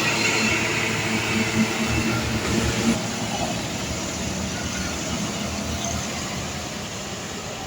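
A large vehicle rumbling past and slowly fading away.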